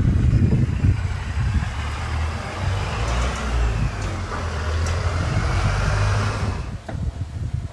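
Buell XB9S Lightning's air-cooled V-twin engine running with a deep, steady rumble. A rushing noise builds over it and cuts off sharply near the end.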